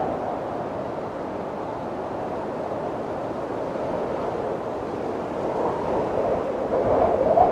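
Snowstorm wind blowing steadily as a dense, rushing noise. It swells in the last couple of seconds into a wavering howl.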